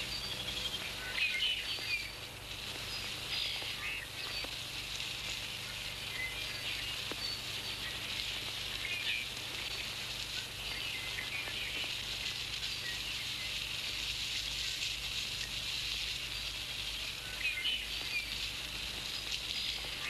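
Woodland birdsong: many small birds chirping and twittering over a steady hiss.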